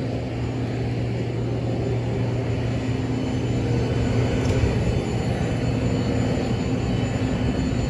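Steady drone of an airliner's engines heard inside the passenger cabin, a constant low hum with a few steady tones, growing slightly louder about halfway through.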